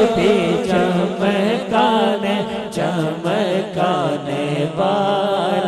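Male naat reciter singing a long, wordless, wavering melismatic passage over a steady low drone. Near the end he settles onto a held note.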